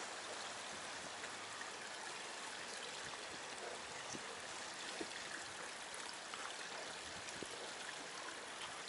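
Small shallow stream running steadily over stones.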